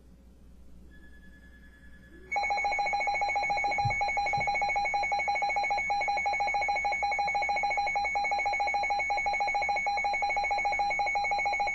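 Weather-radio alert tone: an electronic alarm that switches on abruptly about two seconds in and holds one steady pitch with rapid pulsing for about ten seconds, signalling that a weather bulletin is about to follow.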